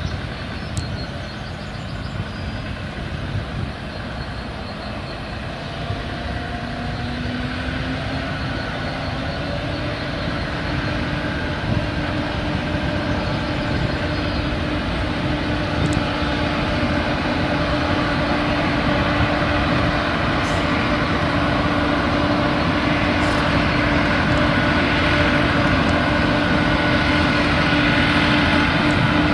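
Small narrow-gauge diesel locomotive running and hauling a train of steel peat wagons on a field railway, growing steadily louder as it approaches. Its engine note steps up about six to eight seconds in, then holds steady.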